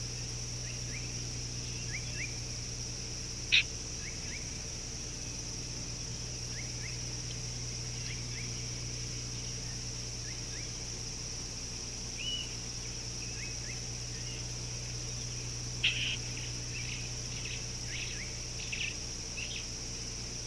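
Outdoor bush ambience: a steady high insect drone with scattered short bird chirps, over a low steady hum. There is a sharp short sound about 3.5 s in, and a run of louder chirps from about 16 to 19 s.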